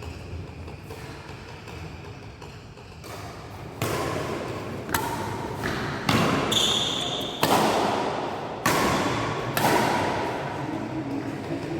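Badminton rally in an echoing hall: sharp racket hits on the shuttlecock about once a second, starting about four seconds in, each ringing on briefly, with thuds of footwork.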